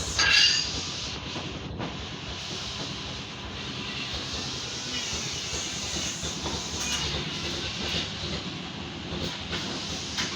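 Saw-sharpening grinder running steadily against a sawmill saw blade, a continuous hissing grind over a fast mechanical chatter, briefly loudest about half a second in.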